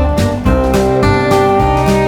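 Background music: acoustic guitar with a steady beat and bass line.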